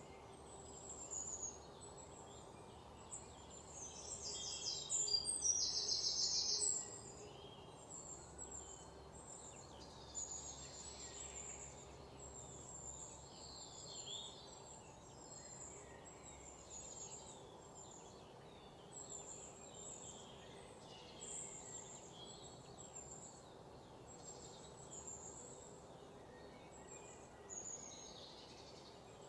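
Small birds chirping and twittering in the background, with one louder, rapid trill from about four to seven seconds in, over a faint steady hum.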